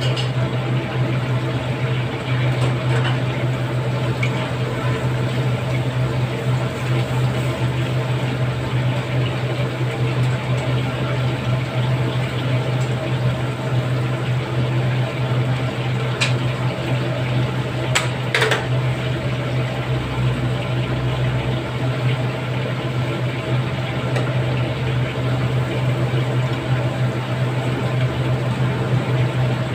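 Chicken pieces deep-frying in a wok of hot oil, a steady bubbling sizzle over a constant low hum. A few light clicks of metal tongs against the wok about two-thirds of the way through.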